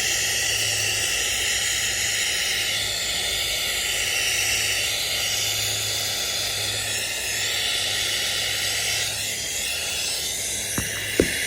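Steady hissing noise with a low hum beneath it, and two short sharp clicks near the end.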